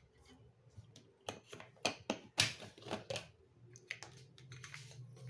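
Plastic kitchenware being handled: a quick run of clicks and knocks as the lid is taken off a blender jar, with a few lighter clicks near the end.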